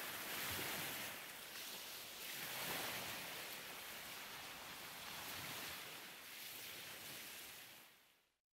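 Faint wash of sea waves, a noisy hiss that swells and eases every couple of seconds, then fades out to silence near the end.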